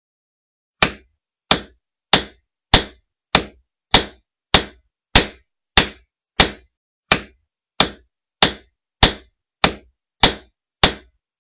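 A hammer striking nails into wood as a sound effect: one sharp, loud whack about every 0.6 seconds, each dying away quickly, starting about a second in and running on as a steady series of about seventeen blows.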